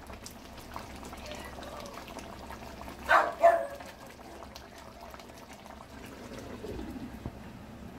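Coconut-cream curry simmering in a pan, with a steady bubbling hiss. A dog barks twice in quick succession about three seconds in, and near the end a glass lid is set on the pan with a light click.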